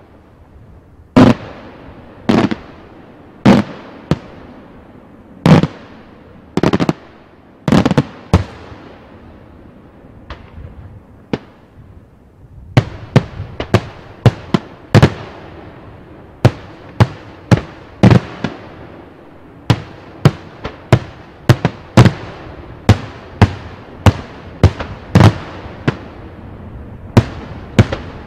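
Daytime fireworks: aerial shells bursting overhead with sharp bangs, each trailing off in an echo. They come about one a second at first, then after a lull of a few seconds with only small pops, a quicker, denser run of bangs follows.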